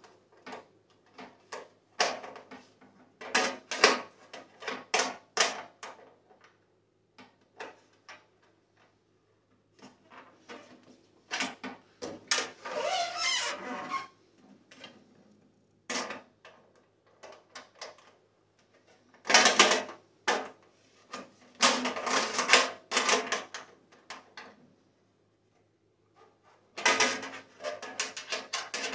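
Box wrench clinking and rattling against the nuts and metal frame of an outdoor gas heater as the nuts are tightened: irregular sharp clicks and short bursts of clatter, with pauses between.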